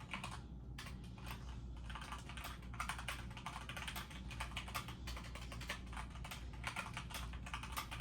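Fast, continuous typing on a computer keyboard: many key clicks a second with no break.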